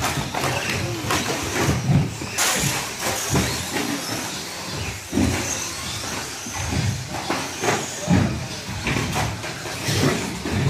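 Radio-controlled 2WD short course trucks racing on an indoor carpet track: motors whining and rising and falling in pitch, with repeated knocks as the trucks land jumps and hit the track.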